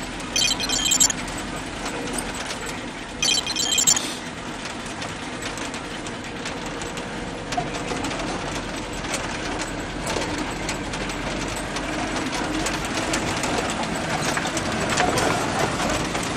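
Off-road vehicle driving over a rough dirt track, heard from inside the cabin: steady engine and road rumble throughout. Two short, loud rattling bursts come about half a second in and again about three seconds in.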